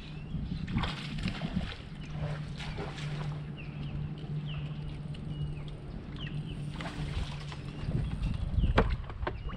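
Bass boat's bow-mounted electric trolling motor humming steadily, with a bird's short falling chirps over it in the first few seconds and a sharp click near the end.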